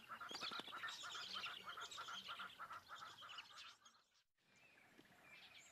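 Small insect-eating birds calling in quick, repeated chirps, fading out about four seconds in; after a moment of silence, faint chirps return.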